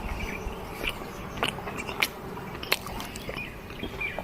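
A person chewing and biting food close to the microphone, with small scattered clicks.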